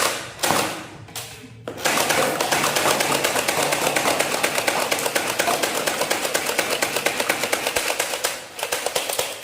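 Toy M249 machine gun firing on full auto. A few short bursts come first, then a steady, rapid rattle of about ten shots a second that runs for some seven seconds and stops shortly before the end.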